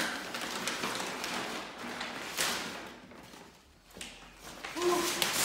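Brown kraft paper rustling and crinkling as it is unwrapped and pulled off a new pane of window glass, easing off for a moment before more crumpling and a short squeak near the end.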